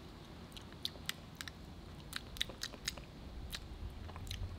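Faint wet lip smacks and tongue clicks of a person tasting spinach pesto licked off a finger, a dozen or so small scattered clicks.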